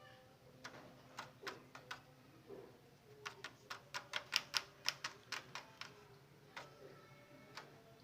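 A series of sharp, dry clicks: a few scattered ones, then a quick run of about four or five a second, loudest in the middle, before thinning out again near the end.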